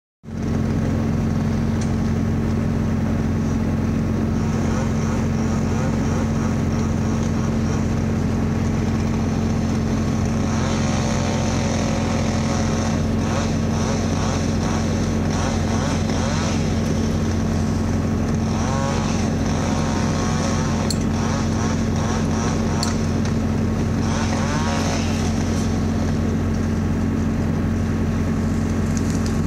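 An engine running steadily at one constant speed, a loud, even drone throughout.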